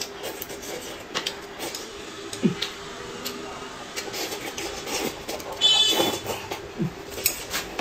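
Close-up eating sounds: noodles and food from a self-heating hotpot slurped and chewed, with soft mouth smacks and chopstick clicks, and one louder slurp about six seconds in.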